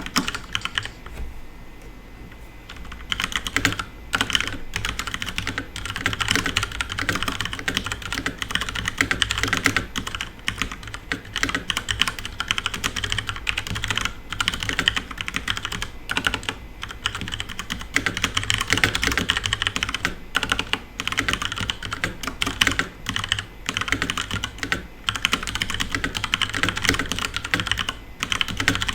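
Fast, continuous typing on a FILCO Majestouch Ninja tenkeyless mechanical keyboard with brown switches: a dense run of key clicks with brief pauses, getting going in earnest about three seconds in.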